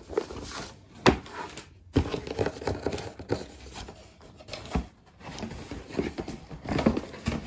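Cardboard box and paper packing being handled as items are taken out: rustling and crinkling with several short knocks and taps.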